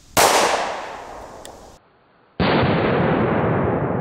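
A .45 ACP Smith & Wesson Shield pistol shot: a sharp report that echoes and fades. About two seconds later a second, duller blast sets in and dies away slowly.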